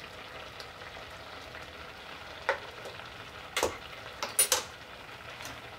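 Pot of apple pieces boiling on the stove for applesauce, a steady bubbling hiss. A few sharp metallic clicks of cutlery being set down, about two and a half, three and a half and four and a half seconds in.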